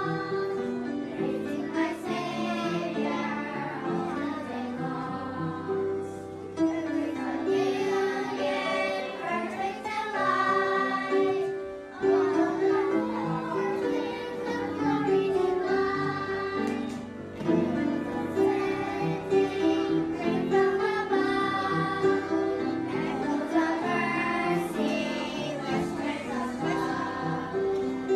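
A Christian children's praise song: several voices singing together over an instrumental backing track.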